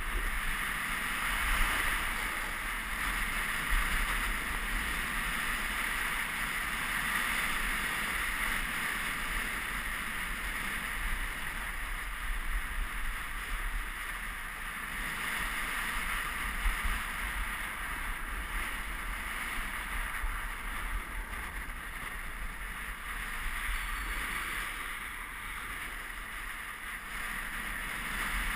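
Snowboard sliding down groomed snow, a steady rushing hiss of the board over the snow mixed with wind buffeting the GoPro's microphone, with a few brief louder scrapes.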